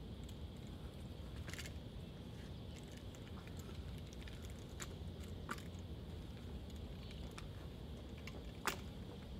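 Scattered light clicks and taps from a drill rifle being spun and caught in gloved hands, with one sharper smack near the end as it lands in the hand, over a steady outdoor hum.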